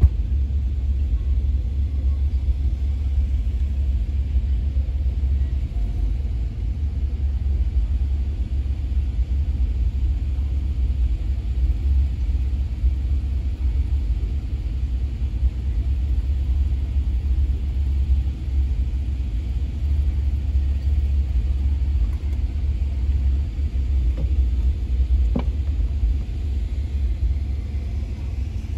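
Steady low rumble of a truck idling, heard from inside the cab. One faint click comes near the end.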